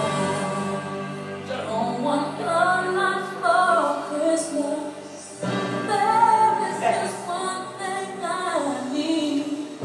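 A recorded song playing: a woman singing a slow, gliding vocal line over backing music, with the accompaniment changing and filling out about halfway through.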